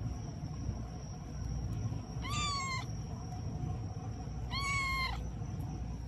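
A cat meowing twice, once about two seconds in and again about a second and a half later. Each meow is a short call that holds its pitch and dips at the end, over a steady low rumble.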